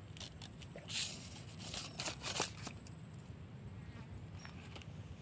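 A few short rustling scrapes from a fishing landing net being handled and set down, the loudest about a second in and again near two and a half seconds.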